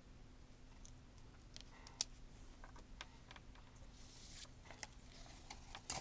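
Foley props handled on a tabletop: irregular light clicks and ticks, one sharper click about two seconds in, with short scratchy swishes toward the end.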